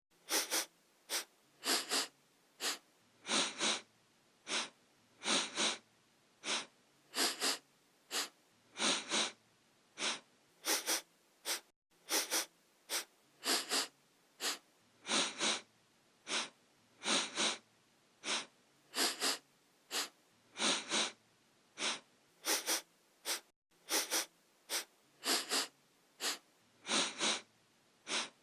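A person sniffing through the nose: short, sharp sniffs, mostly in quick pairs or threes with brief pauses between, going on steadily. The same run of sniffs repeats about every twelve seconds, as a looped sound effect.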